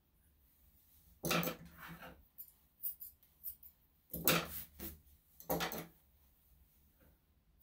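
Grooming tools working a Shih-Tzu's coat: a brush drawn through the hair, then grooming scissors snipping. There are about five short strokes in all.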